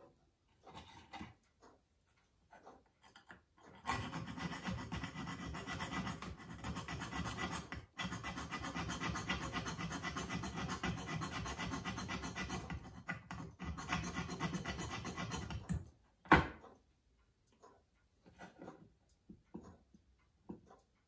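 A fine hand file rasping in quick, even strokes at a pocket-watch case ring, cutting the slot for the winding lever. It starts a few seconds in and runs for about twelve seconds with two brief pauses. Just after it stops comes a single sharp knock, the loudest sound.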